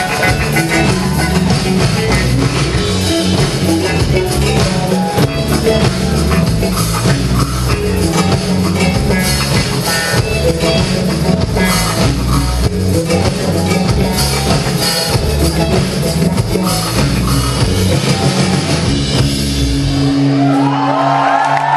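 A rock band playing live, with a drum kit, bass and electric guitars, loud as heard from within the crowd. Near the end the drums and bass stop, leaving a held note with whistling from the audience as the song closes.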